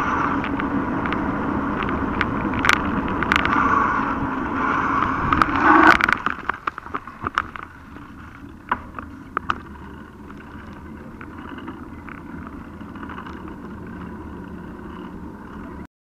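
Riding noise picked up by a handlebar-mounted action camera on a mountain bike: a steady rush of wind and tyres on asphalt, louder for the first six seconds. After that it is quieter, with many sharp clicks and rattles from the camera and bike jolting over the road surface.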